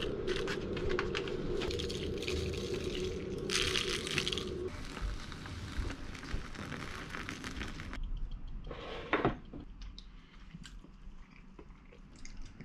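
Water poured from a jug into a bowl of fried tofu for soup, a few seconds of steady trickling pour. After that come a few light clicks of tableware.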